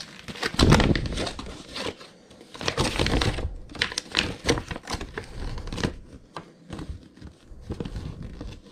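A small handheld plastic wall detector for metal and live wiring being handled and turned over. It gives a run of plastic clicks and taps with some rustling, and a heavier knock just under a second in.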